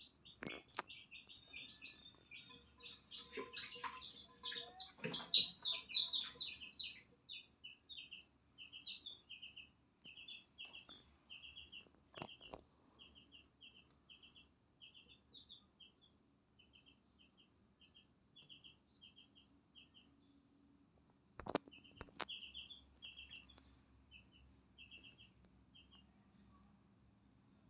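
Baby chicks peeping: short, high cheeps in quick runs of two to four, thickest and loudest around five seconds in. A few sharp clicks are scattered through.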